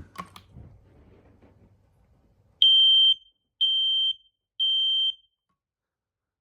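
Kidde i9040 ionization smoke alarm sounding on its test button: three loud, high-pitched beeps about a second apart, the temporal-three fire-alarm pattern, after a few faint clicks.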